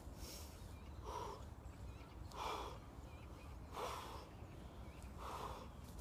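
A man breathing hard from the exertion of shrugging a heavy log: short, forceful breaths about every second and a half, one with each rep.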